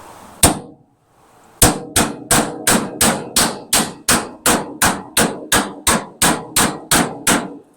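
Hammer striking the steel radiator core support of a Dodge D150 pickup: one blow, then a steady run of about three blows a second, knocking the two cut halves into line before they are welded back together.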